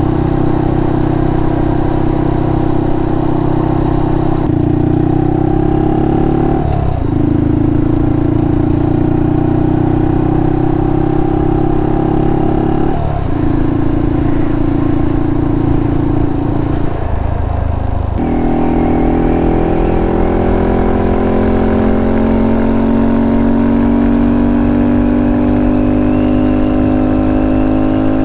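Honda Monkey's 125 cc single-cylinder engine through a Termignoni full exhaust, ridden at gentle cruising revs. The steady exhaust note breaks briefly three times at gear changes, then rises slowly in pitch near the end as the bike accelerates.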